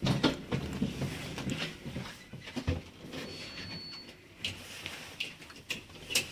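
Irregular knocks, clicks and rustling handling noise while moving through an elevator doorway, with a brief faint high beep about three seconds in.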